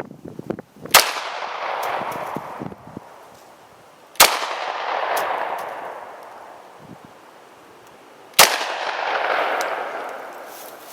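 Three .45-calibre pistol shots from an HK USP Tactical, about three and a half to four seconds apart, each followed by a long echo that dies away over a few seconds. The rounds are fired in turn as standard-pressure .45 ACP, +P .45 ACP and .45 Super.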